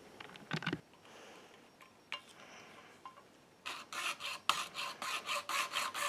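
Hacksaw cutting into the plastic-covered end of a cheap cable bike lock, with even rasping strokes at about four a second that begin a little over halfway in. A few light clicks come first.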